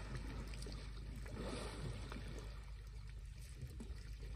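Water splashing and sloshing as elephants bathe in a waterhole, busier in the first half and easing off about halfway through, over a steady low rumble.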